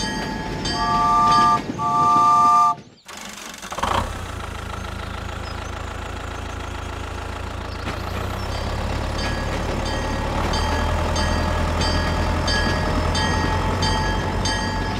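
Toy battery-powered steam locomotive sounding its electronic horn in two short chord toots, then running with a low motor hum. Regular ticking about twice a second runs under it.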